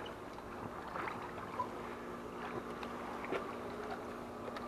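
Pool filter pump running with a steady hum while it draws water through the vacuum hose, with faint water sloshing and small splashes.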